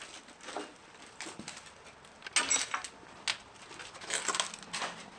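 Footsteps crunching over junk and broken glass on a littered floor: uneven crackles and clinks of debris shifting underfoot, with the busiest crunching about two and a half seconds in and again near four seconds.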